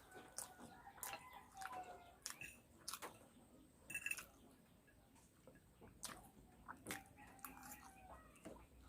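Close-up eating sounds: a person chewing spicy pancit canton noodles with short wet clicks and smacks. A rooster crows faintly in the background.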